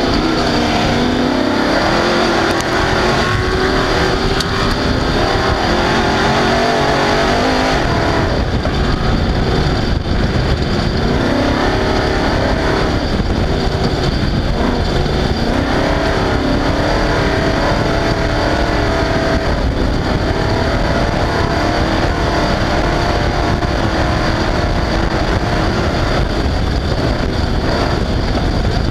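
Off-road race car's engine running hard, its revs rising and falling again and again, over a steady loud haze of rattling and tyre and wind noise.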